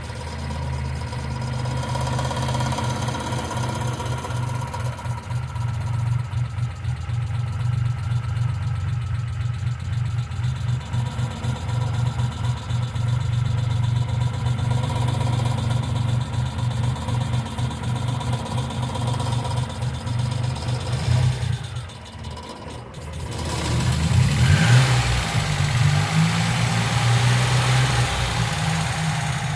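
1995 Geo Metro engine idling steadily. The sound dips briefly about three-quarters of the way through, then comes back louder.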